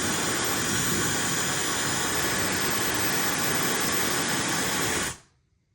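Brushless-motor Dyson-style hair dryer running, a steady rush of blown air with a faint high whine. It is switched off about five seconds in and stops abruptly.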